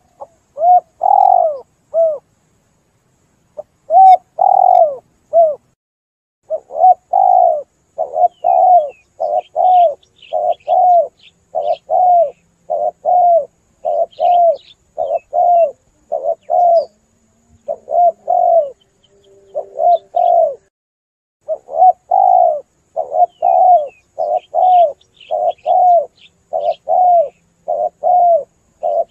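Spotted dove cooing over and over: a long run of short coo notes that rise and fall, about two a second, with a couple of brief pauses near the start. Faint chirps of smaller birds sound above it.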